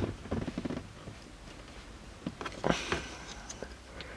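Light handling noises in a car's footwell: scattered small clicks and rustles, with a brief louder rustle about two and a half seconds in.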